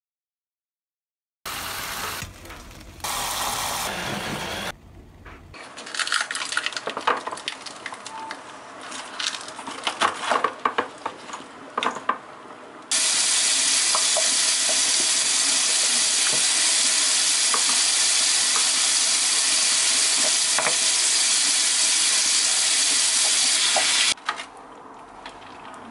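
Cooking at a pot: a utensil clicking and knocking against the pot for several seconds, then a loud steady hiss for about eleven seconds that cuts off abruptly.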